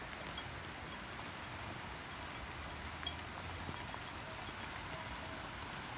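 Heavy rain falling steadily: an even hiss with a few scattered drops ticking.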